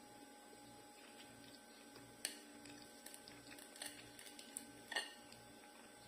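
Near silence with a faint hum and a few light clicks and taps of a fork against a ceramic plate as it cuts into a Kit Kat brownie. The sharpest taps come about two seconds in and again about a second before the end.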